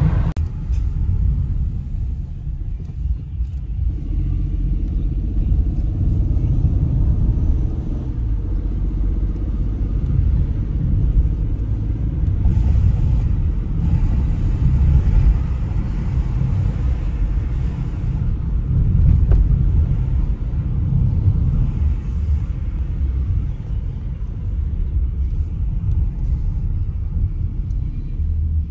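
A car driving, heard from inside the cabin: a steady low rumble of engine and tyre noise.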